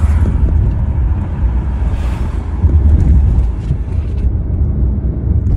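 Low, steady rumble of a car driving, heard from inside the cabin: engine and road noise.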